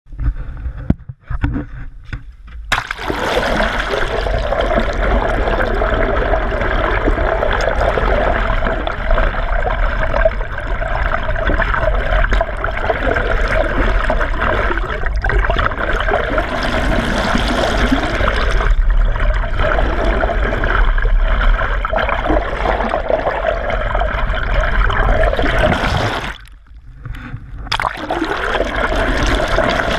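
Water rushing past an action camera dipped in the sea behind a moving boat, heard as a steady muffled churning. It is quieter and broken for the first few seconds while the camera is above the surface, and drops out briefly near the end.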